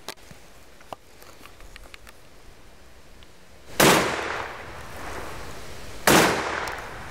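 TOZ-66 12-gauge side-by-side hammer shotgun fired twice, one barrel and then the other, a little over two seconds apart, each shot followed by a short echoing tail.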